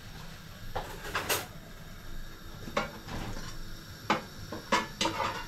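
Kitchen clatter from a drawer and cutlery, then a metal fork knocking and scraping against an air fryer basket: a run of separate sharp clinks and knocks.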